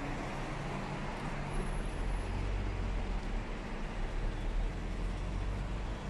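Steady low rumble and hiss of outdoor background noise, the rumble growing louder about two seconds in.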